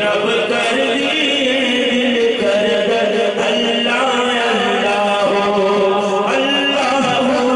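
A group of men chanting together at a Sufi devotional gathering, many voices overlapping in one continuous sung chant.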